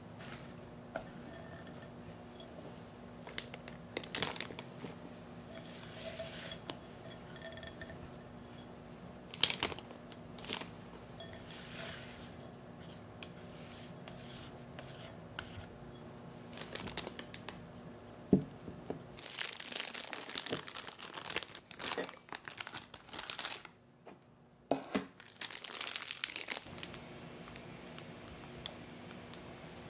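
A spatula scraping and tapping thick matcha sponge batter in a glass bowl, with scattered light clicks. About two-thirds of the way through comes a spell of plastic crinkling as the batter goes into the piping bag and the bag is handled.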